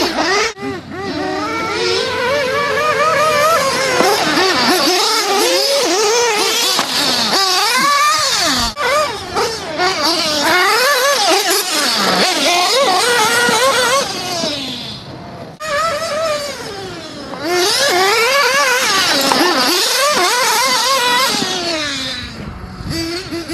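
Several radio-controlled off-road cars racing past, their motors whining and constantly rising and falling in pitch as they accelerate and back off. Several pitches overlap, with a brief lull about two-thirds of the way through.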